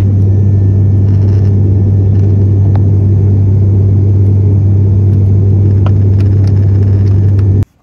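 Airliner cabin noise in flight: a loud, steady low drone with a deep hum, cutting off suddenly near the end.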